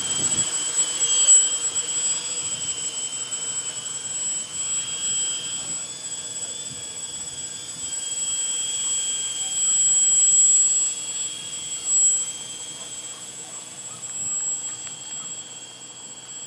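RC tricopter's three electric motors and propellers whining steadily in flight. The sound grows louder around ten seconds in and fades near the end as the craft climbs away.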